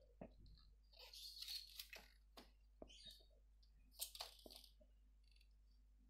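Faint handling noise: the plastic housing of a washing-machine control board knocked and scraped by hand as it is turned over, a scatter of light clicks and short rustles, loudest about one and a half and four seconds in.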